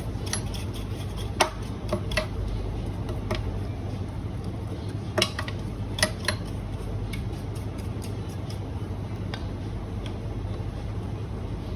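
Hard parts of a Eureka coffee grinder clicking and clinking now and then as they are handled and set down during cleaning, over a steady low hum.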